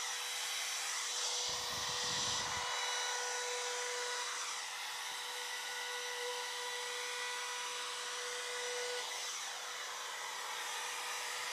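Trim router running at a steady high whine while its chamfer bit cuts a small chamfer along the edge of a round timber stool top. A brief low rumble comes in about two seconds in.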